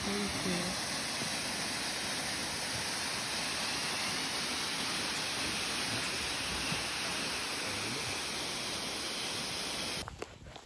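Waterfall pouring into a pool, a steady, even rushing of falling water. It stops abruptly near the end.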